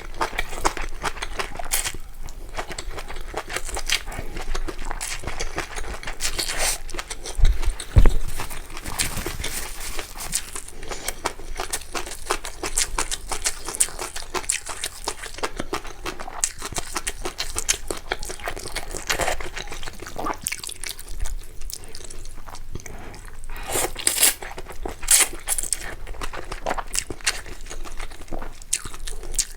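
Close-miked eating sounds: chewing and slurping food, with many short wet clicks and bursts. A heavy thump comes about eight seconds in.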